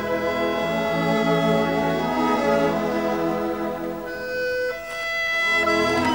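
Orchestral background music with held string notes, dipping briefly near the end before swelling again.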